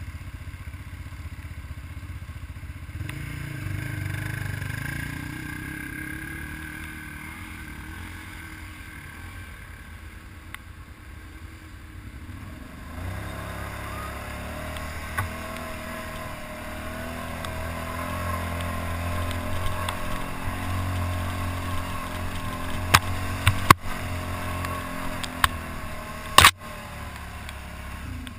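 ATV engine running as the quad rides along, its pitch shifting with the throttle and pulling harder from about halfway. A few sharp knocks near the end, the loudest just before it finishes.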